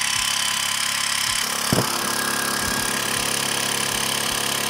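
Xiaomi Mi Portable Electric Air Compressor running unloaded, its motor and pump making a steady, loud drone with a constant pitched hum while air blows freely from the open hose. A single short knock comes near the middle.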